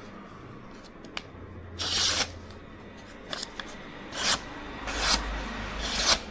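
A Victorinox Santoku kitchen knife's blade drawn in four long strokes, each a short hiss, at uneven intervals.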